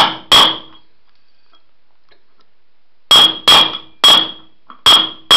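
Hammer blows on a socket driving a ball bearing by its outer race into a go-kart rim. There are seven sharp metallic strikes: two quick ones, a pause of nearly three seconds, then five more, each with a clear ringing tone. The change to this ringing sound signals that the bearing is fully seated.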